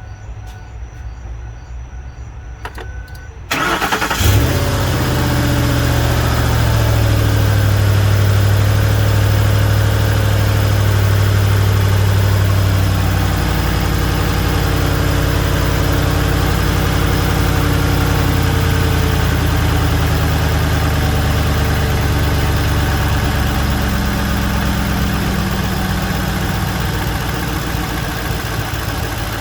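The 5.4-litre V8 of a 2004 Ford F-150, fresh from a timing-chain replacement, starts about three and a half seconds in. It then runs at a steady fast idle that eases down slightly after about ten seconds. It is running without the accessory belt so that any engine noise can be heard.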